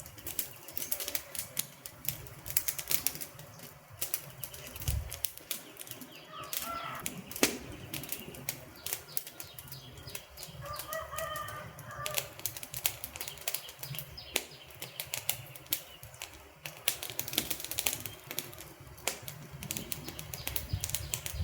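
Wood fire burning with dense, irregular crackling and sharp pops over a low rumble.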